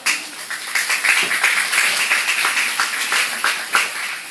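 Audience applauding, a dense patter of many hands clapping that slowly fades.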